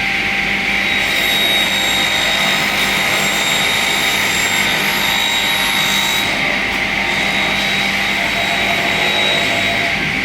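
Multi-blade rip saw machine for door casings running, a steady loud whine and rush of machine noise over a low hum; the highest hiss drops away about six seconds in.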